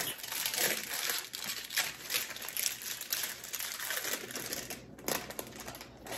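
Plastic wrapper of a gingerbread Oreo cookie pack crinkling and crackling as it is handled and torn open, in an irregular run of rustles that dies down about five seconds in.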